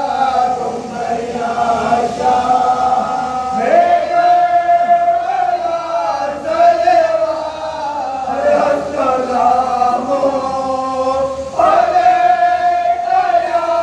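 Group of men chanting a Shia devotional salwat together in long, drawn-out held notes, with new phrases swelling in about four seconds in and again near the end.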